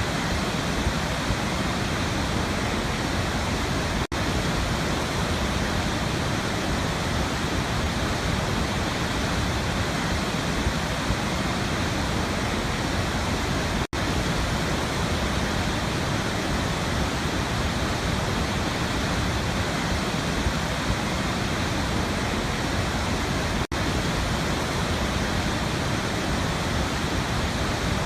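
Waterfall rushing in a steady, even roar of falling water, broken by three brief dropouts about ten seconds apart.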